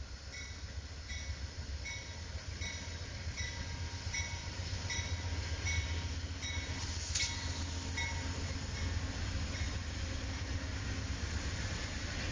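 Amtrak train with a GE Genesis diesel locomotive passing close by, its engine a steady low rumble. A bell rings about three strokes every two seconds until near the end, with one sharp clank about seven seconds in. The rush of the passing cars grows toward the end.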